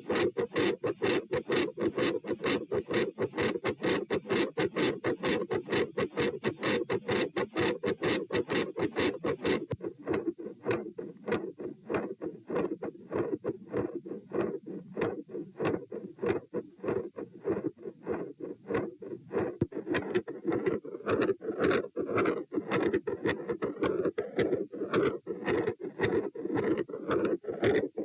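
Recorded heart sounds from a standing subject, heard at the pulmonic area as a quick, regular series of beats. The character of the beats changes about ten seconds in and again about twenty seconds in, as three different heart-sound patterns follow one another.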